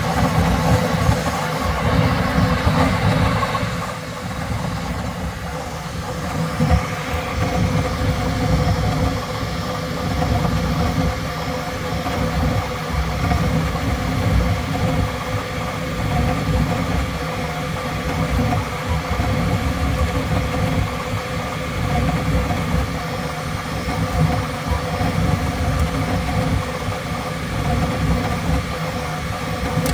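Bambu Lab X1 Carbon 3D printer printing at its fastest 'ludicrous' speed setting. A steady mechanical whine from its motors and fans runs over a fast, fluttering low rattle as the print head darts back and forth.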